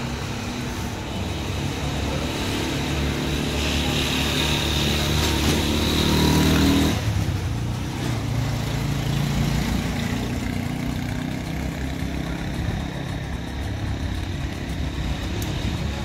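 Motor vehicle engine running on the move through streets. It rises in pitch as it speeds up for a few seconds, then drops off abruptly about seven seconds in, and runs on more evenly after that.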